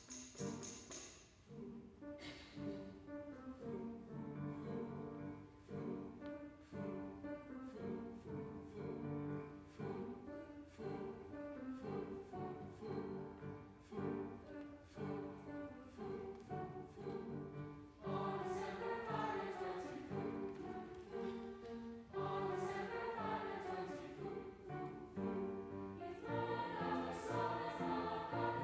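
Choir singing with instrumental accompaniment over a steady pulse. The music grows fuller and brighter about two-thirds of the way in.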